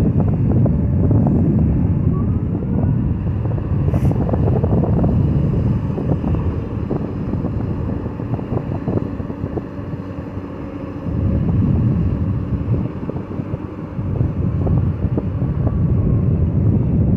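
Diesel engine of a heavy construction machine running and working, its rough rumble easing off around the middle and picking up again about two-thirds through. There is one sharp click about four seconds in.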